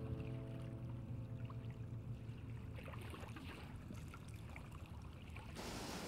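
The low tail of background music fades out, leaving faint water trickling and dripping. Near the end the steady rush of a mountain creek tumbling over rocks cuts in suddenly.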